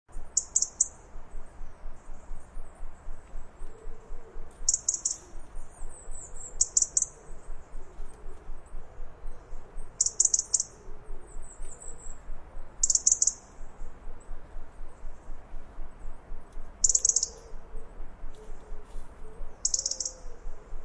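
European robin alarm calling: short, sharp, high-pitched ticks repeated steadily, with a louder cluster of ticks every two to three seconds.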